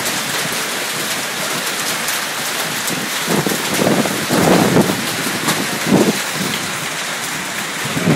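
Hailstorm with heavy rain: a dense, steady pounding of hailstones and rain with many sharp individual impacts, swelling into two louder, rumbling surges about halfway through and again around six seconds in.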